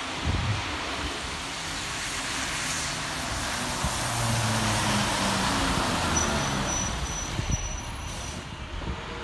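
Road traffic: a motor vehicle passing, its engine and tyre noise swelling about four to six seconds in, with a faint high whine near the end.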